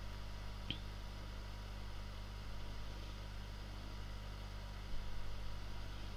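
Steady low electrical hum with an even background hiss, and a faint brief click about a second in.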